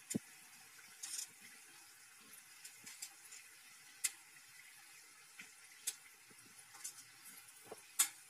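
Samosas deep-frying in hot oil in a kadai, golden brown and nearly done: a steady sizzle with a few sharp clicks as a wire spider skimmer turns them.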